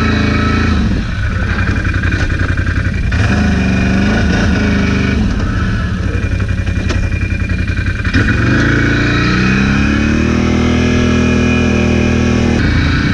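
ATV engine running under throttle, its pitch dropping and climbing as the throttle is worked. A little past the middle it revs up in one long rising sweep, then holds a steady higher note.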